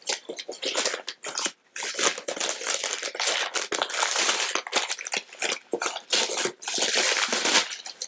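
Packaging crinkled and torn open by hand, a dense rustling and crackling with brief pauses about one and a half and six and a half seconds in.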